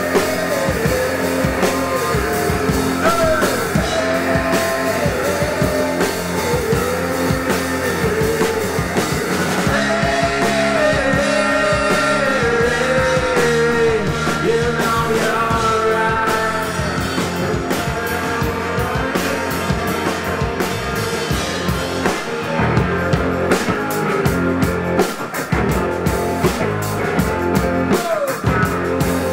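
Live rock band playing: electric guitars, bass guitar and drums, with a lead melody line that bends up and down in pitch.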